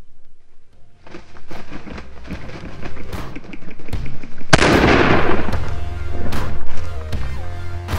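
A single shotgun shot about halfway through, fired at a flushing rooster pheasant, with a long fading tail, over background music.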